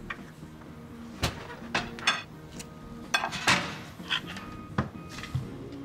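Cutlery and crockery clinking and knocking: about seven separate clinks spread over several seconds, some ringing briefly.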